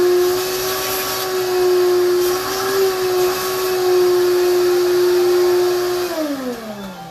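Shop vacuum running with a steady whine. It is switched off about six seconds in, and the motor winds down with a falling pitch.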